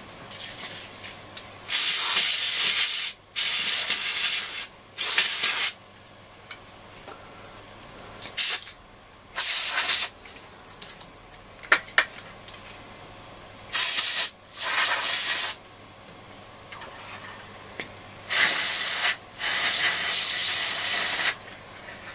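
Compressed air hissing in a series of short blasts, about eight or nine, each a second or two long with brief pauses between, blowing dust out of the vanes of a radio's FM tuning capacitor.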